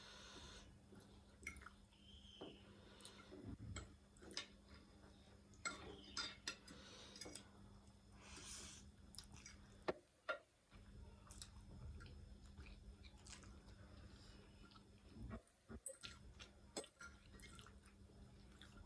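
Faint eating sounds: chewing, with scattered sharp clicks of cutlery against a bowl and short hissy bursts, over a steady low hum.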